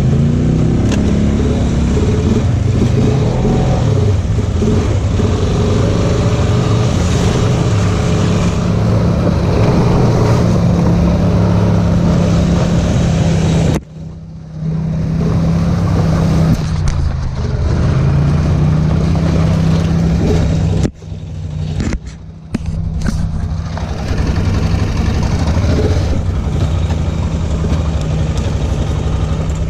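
Off-road vehicle engine running steadily under way. It drops off sharply for a moment about halfway through, sags in pitch and picks back up, then briefly drops out twice more about two-thirds of the way in.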